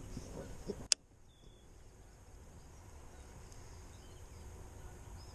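Quiet pondside ambience with faint scattered bird chirps. A single sharp click sounds about a second in, and the low rumble drops away right after it.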